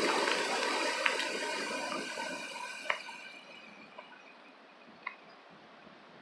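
Storm wind rushing and gradually dying away, with a few sharp ticks along the way.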